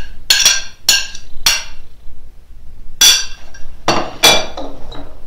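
Ceramic plate clinking, knocked several times as the last fried onion and carrot are shaken off it into a mixing bowl: three quick ringing clinks, a pause, then three more, the last two duller.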